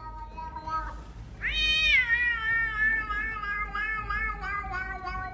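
Domestic cat meowing: a short, softer call, then one long drawn-out meow starting about a second and a half in that rises, then slowly sinks and wavers.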